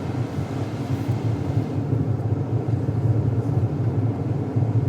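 Steady road and tyre rumble heard inside a moving Tesla's cabin. With an electric drive there is no engine note, only the even noise of the tyres on the road.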